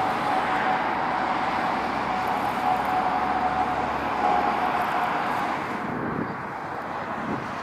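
Twin-engine Airbus A320-family jet climbing overhead at go-around thrust: a steady jet roar with a constant whine through it. About six seconds in the sound drops and changes as another twin-engine jet climbing away takes over.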